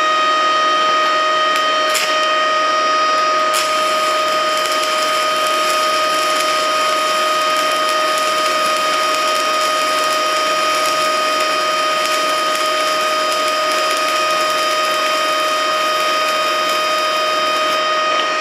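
Stick (SMAW) welding arc from a 3/32-inch electrode at 40 amps on 1/8-inch steel sheet, burning steadily as an even crackling hiss, with several steady high tones underneath and two sharp ticks in the first few seconds. The current is at the low end of the electrode's 40–90 A range, a setting that proves right for the thin sheet.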